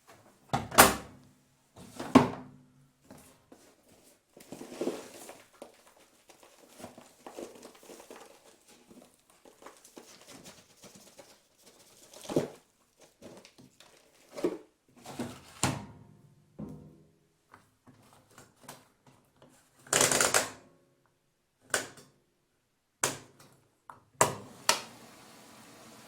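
Handling of an automatic washing machine: a string of separate clunks, knocks and clicks, the two loudest in the first few seconds and a longer clatter about twenty seconds in.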